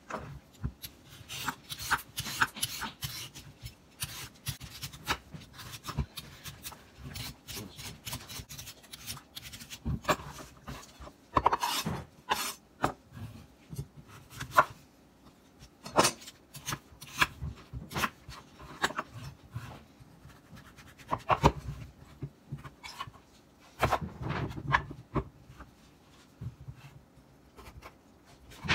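A butternut squash being peeled and cut on a wooden cutting board: a run of rasping scrapes from a vegetable peeler, then a chef's knife chopping through the squash and knocking down onto the board several times.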